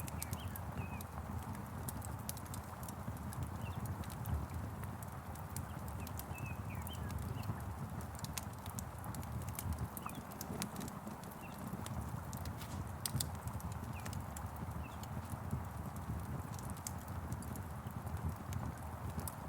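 Crackling fire with frequent sharp pops and snaps over a steady low rumble and the hiss of rain, while small birds chirp faintly now and then.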